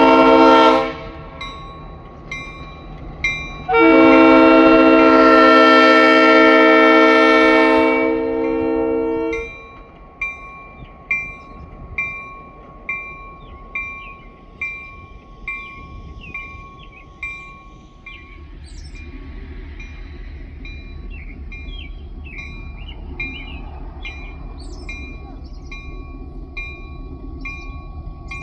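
Diesel switcher locomotive Strasburg 8618 sounding its horn, a short blast at the start and then one long blast of about five seconds. Its bell rings steadily about once a second throughout. After the horn the locomotive's engine runs on with the bell still ringing.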